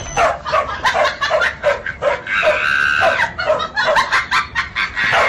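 Dogs yapping rapidly, about three or four short high barks a second, with one drawn-out squeal about two and a half seconds in.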